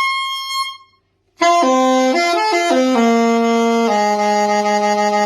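Newly overhauled C.G. Conn curved soprano saxophone with a Hollywood Winds Tribute VS-7 mouthpiece, played solo. A high note is held and stops about a second in; after a short gap comes a run of notes stepping downward into the bottom of the horn's range, ending on a long held low note.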